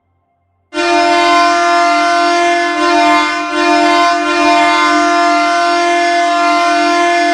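Airchime M3H three-chime train horn blown as a hockey goal horn, signalling a goal: one long, steady chord that starts about a second in and holds for about six and a half seconds.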